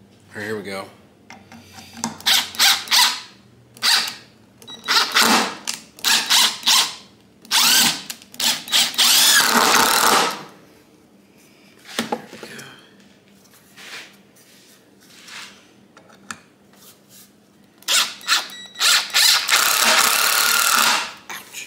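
Ridgid cordless impact driver driving wood screws into a pine brace, in several bursts of a few seconds each, the longest near the middle and near the end.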